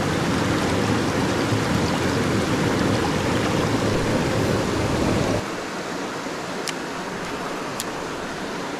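Mountain creek water rushing steadily over rocks. About five seconds in, the deep part of the rush drops away and a lighter hiss of water remains, with two faint ticks near the end.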